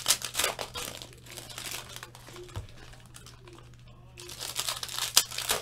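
Foil wrapper of a trading-card pack crinkling as it is torn open by hand, in a dense spell of crackling at the start and again near the end.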